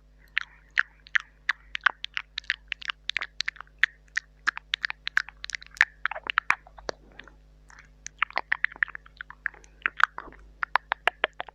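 Close-miked ASMR mouth sounds into a mini microphone: a dense run of quick wet clicks, smacks and tongue taps, several a second, with a couple of short hissy stretches near the middle and near the end.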